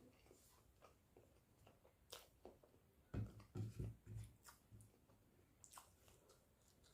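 Quiet eating sounds of rice and egg curry: soft chewing and wet mouth clicks, with a short run of low thumps around the middle.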